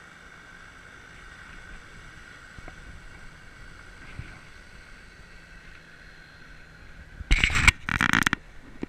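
Faint steady background hum, then two loud rubbing bumps against the action camera in quick succession about seven seconds in, each lasting under half a second.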